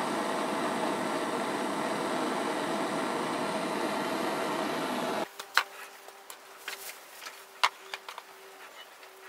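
Gas blowtorch flame hissing steadily as it heats a copper plate. It cuts off abruptly about five seconds in, leaving a quiet background with a few light clicks and taps of small metal pieces being handled.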